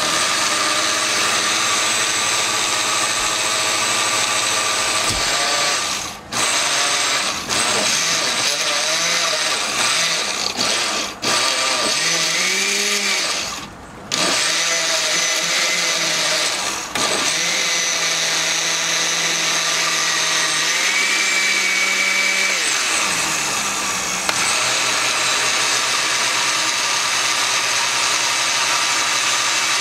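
Oster Classic Series 5-speed blender motor running hard, stopping briefly about five times and starting again, its pitch wavering and shifting as the load changes. The owner finds it not powerful enough to blend all the ingredients without assistance.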